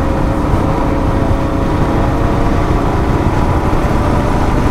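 Royal Enfield Himalayan's single-cylinder engine running at a steady cruise, its pitch holding level, under a constant rush of wind and road noise.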